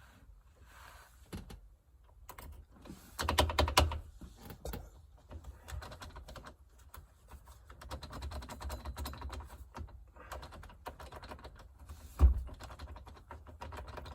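A screwdriver tapping on the end of a key in a 1997 Chevy Suburban's ignition lock cylinder: quick metal clicks in uneven runs, a dense flurry about three seconds in and one loud knock near the end. The tapping is meant to jar a stuck lock pin down so the key will turn.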